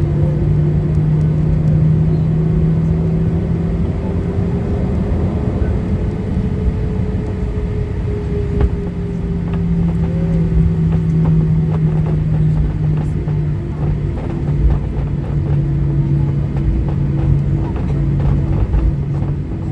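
Boeing 737-800 cabin noise while taxiing, its CFM56-7B jet engines running at low taxi power: a steady rumble with a low hum and a higher tone that rises slightly and falls back midway.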